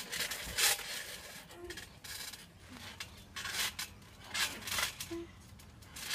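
Clothing and bodies rubbing and scuffling in irregular rustling bursts as a person strains against a wrestling hold.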